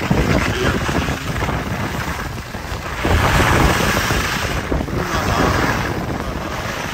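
Wind buffeting the microphone with a steady rumbling rush, growing louder about three seconds in and easing off toward the end.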